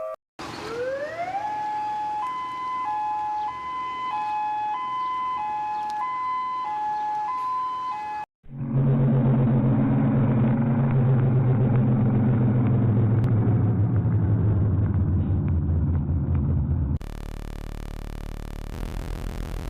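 An alarm siren: a tone glides up, then switches back and forth between two pitches about every half second, like a hi-lo two-tone siren, and cuts off about eight seconds in. A louder, muffled recording with a low drone follows. A quieter clip takes over near the end.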